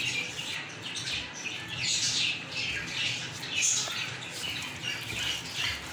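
Plastic-gloved hands massaging a masala and flour marinade into raw chicken pieces in a steel bowl: repeated wet squelching and squeaky rubbing, a few strokes a second.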